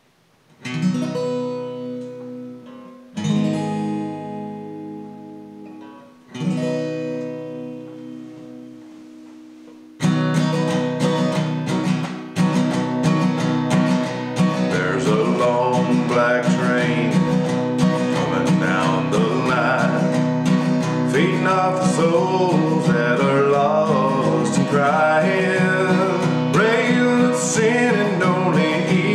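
Acoustic guitar: three chords struck and left to ring out and fade, then steady rhythmic playing from about ten seconds in, with a man singing over it from about fifteen seconds in.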